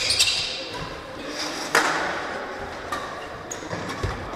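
Badminton rackets striking a shuttlecock in a rally, sharp cracks that echo in a large sports hall: a loud one at the start and another just under two seconds in. Players' footfalls thud on the court near the end.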